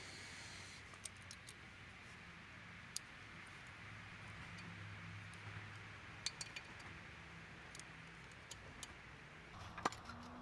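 Faint, scattered metallic clicks and clinks of tools and parts being handled under the car, over a quiet low background hum.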